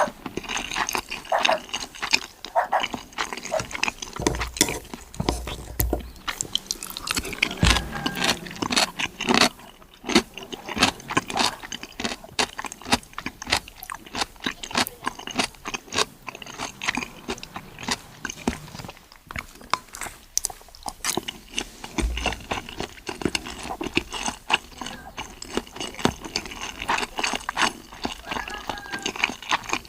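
Close-up eating sounds of a seafood mukbang: chewing, crunching and lip-smacking, with many quick irregular clicks and snaps.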